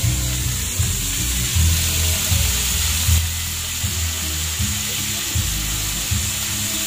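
Background music with a low bass line, over vegetables and sauce sizzling in a frying pan.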